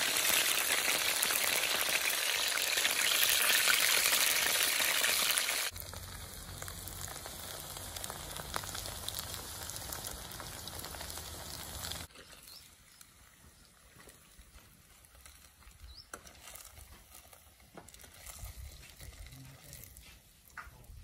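Batter-coated mushrooms sizzling as they fry in hot oil in a wok. The sizzle drops suddenly to a quieter level about six seconds in and stops about twelve seconds in, leaving only a few faint clicks.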